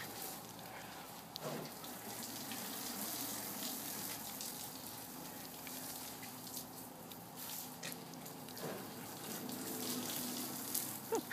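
Steady hiss of water spraying from a spinning lawn sprinkler onto the grass.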